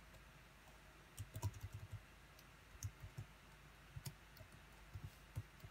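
Faint computer keyboard keystrokes: a quick run of about six key clicks about a second in, then scattered single keypresses.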